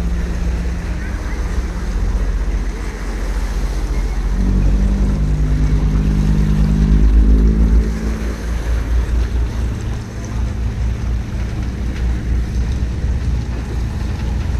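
Wind rumbling on the microphone over the low hum of a ferry's engine and lapping water. Between about four and eight seconds in, a louder low droning sound rises over it, with several tones that shift in pitch.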